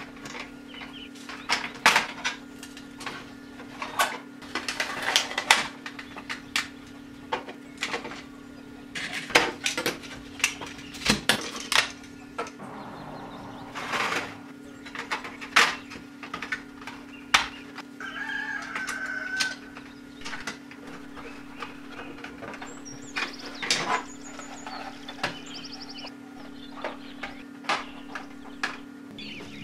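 Small screws being taken out of a plastic frame with a screwdriver, then the plastic frame pieces being pulled apart and handled: scattered sharp clicks, taps and plastic knocks over a steady low hum.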